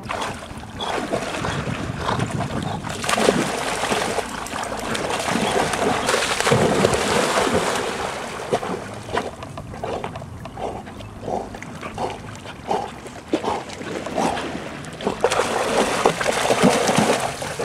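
Dogs swimming and wading through water, with sloshing and repeated short splashes from their paddling.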